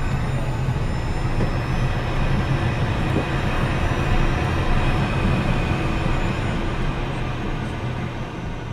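Cockpit noise of an Embraer Phenom 100 taxiing: a steady whine from its Pratt & Whitney PW617F turbofans at low power over a low rumble from the wheels on the taxiway. The noise fades out near the end.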